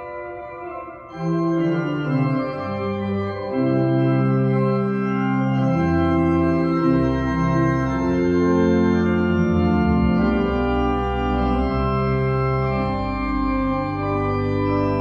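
Organ playing slow, sustained chords with deep bass notes, growing louder about a second in.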